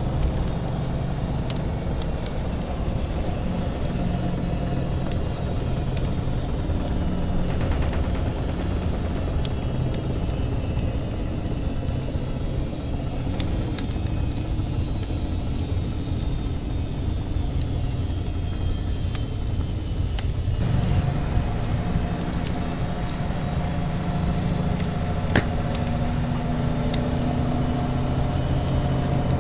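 Washing machine running with a steady low rumble that changes pitch pattern about two-thirds of the way in, overlaid with scattered crackles and pops of a wood fire.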